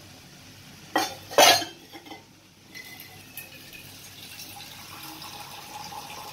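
Two sharp clinks of a utensil or glass against a kadai, about a second in. Then a steady hiss as water is poured into the hot tomato-onion masala.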